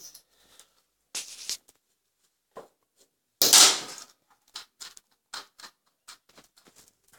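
A few short scraping strokes, the loudest about three and a half seconds in, then a run of light clicks: grooming tools being handled on a stainless steel table while the schnauzer's leg fur is worked by hand.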